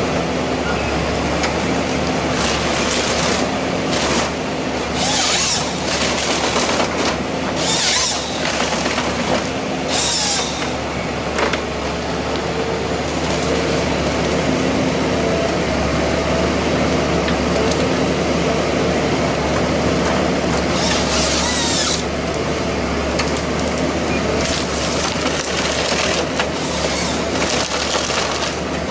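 Heavy machinery running steadily with a low hum, broken by several short hissing bursts.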